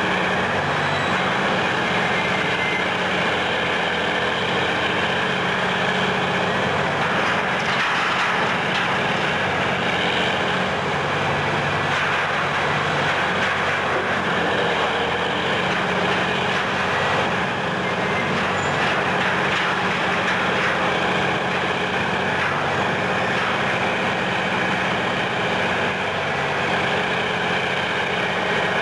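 Diesel engine of a cable-operated Menck crawler crane running steadily under load while it works its boom in demolition.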